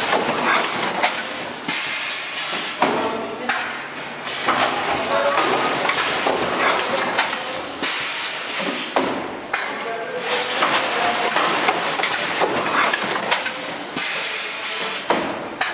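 OPACK QT 1008 thermoform fill-seal packaging machine running through its cycle, with repeated bursts of pneumatic hiss and mechanical clatter about every second or so.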